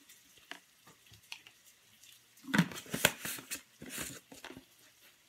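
A plastic tub of protein powder being handled and turned close to the microphone: a quiet start with a few small clicks, then a cluster of knocks and rustling about halfway through.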